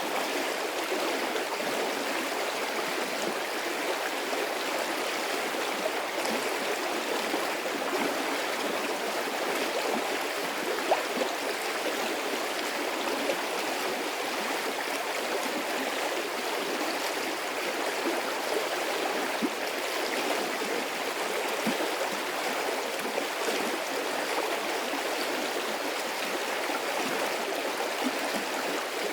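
Medium-sized stream of running water, a steady flowing rush with small splashes and gurgles scattered through it.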